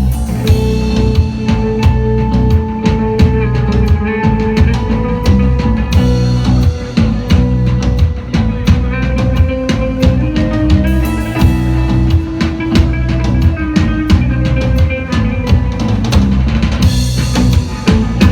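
A band playing live: a steady drum-kit beat with bass drum and snare under a bass line and a melody of long held notes, with cymbal crashes every five or six seconds.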